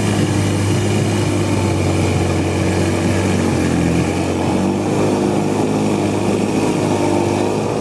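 Off-road 4x4 SUV engine running hard and steady under load as the vehicle churns through deep mud ruts.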